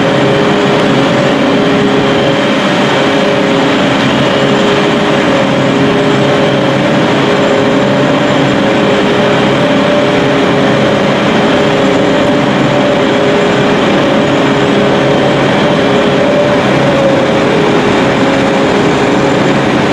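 Dv12 diesel-hydraulic locomotive's engine running steadily with a constant low hum as it hauls a passenger train slowly toward the platform.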